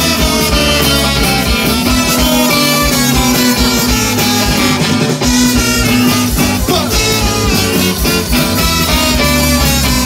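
Live band playing loud, upbeat music, with electric guitar, accordion and horns over a steady drum and bass beat.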